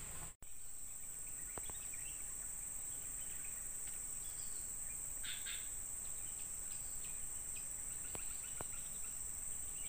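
Steady high-pitched drone of an insect chorus, with faint short bird chirps scattered through it.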